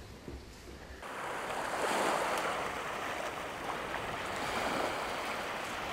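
Small waves washing onto a pebble and rock shore, a steady hiss that comes up louder about a second in.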